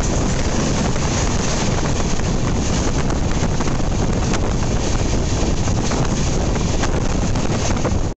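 Wind rushing over the microphone, loud and steady, over the rumble of a moving passenger train.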